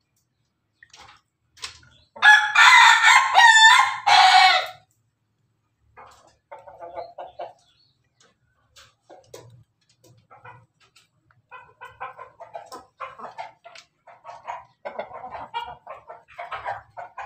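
A rooster crows loudly once for about two and a half seconds, its pitch wavering and briefly breaking near the end. Later, chickens cluck and chatter more softly in a run of short calls.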